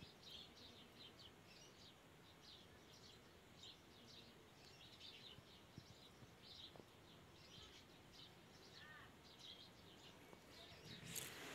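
Faint chirping of small birds: many short, irregular high chirps throughout, with a brief louder noise near the end.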